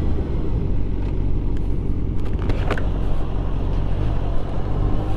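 Motorcycle engine running steadily while riding along a road, mixed with wind noise at the helmet-mounted microphone, with a few short clicks about two and a half seconds in.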